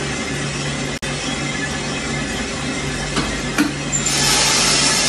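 Small drum coffee roaster running with a steady mechanical hum and a few light clicks. About four seconds in, a louder rushing hiss begins as the roast is dropped from the drum into the cooling tray.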